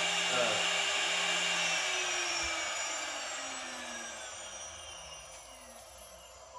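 A 2.2 kW air-cooled CNC router spindle, its own cooling fan blowing through the motor, running at 24,000 RPM and then spinning down from about two seconds in: its whine falls steadily in pitch and the fan noise fades away.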